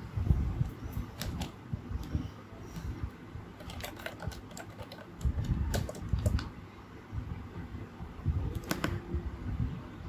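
Round typewriter-style keys of an iGear KeyBee wireless keyboard clicking in irregular bursts of typing, with a few handling knocks near the start.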